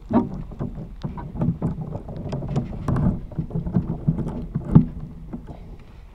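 Hands handling an opened Mug Shot pasta pot underwater, heard through a hydrophone: irregular rustling, clicking and small knocks as the pot and its pasta are stirred and shaken out, with one sharper knock near five seconds in, dying down near the end.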